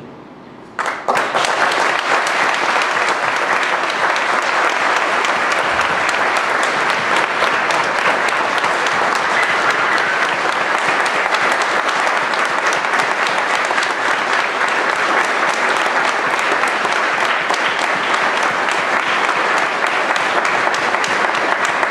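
A church congregation applauding, breaking out suddenly about a second in and holding steady: welcoming a new pastor just commended to them.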